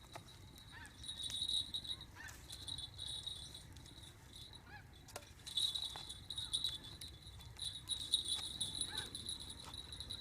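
Insects chirping in a steady, high-pitched chorus that pulses in stretches of a second or two.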